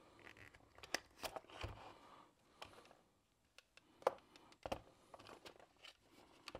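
Rubber grip ring being peeled and worked off the barrel of a Canon EF 100-400mm L lens: faint rubbing and rustling, with scattered light clicks and taps as the lens parts are handled.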